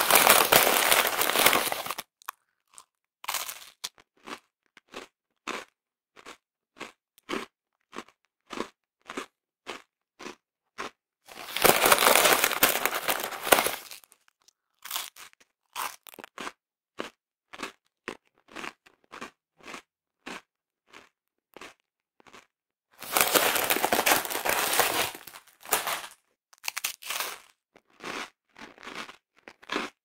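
Close-up of a person eating crisp biscuits: a run of short, separate crunches as the biscuits are bitten and chewed, about one to two a second, broken three times by longer spells of dense crunching lasting two to three seconds, near the start, about twelve seconds in and about twenty-four seconds in.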